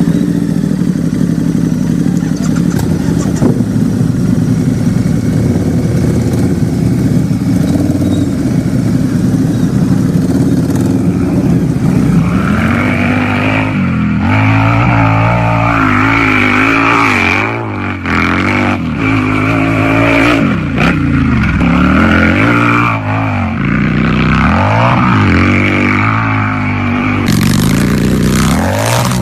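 Harley-Davidson V-twin motorcycle engine running steadily for about twelve seconds, then revved up and down several times, its pitch rising and falling. A hiss joins near the end.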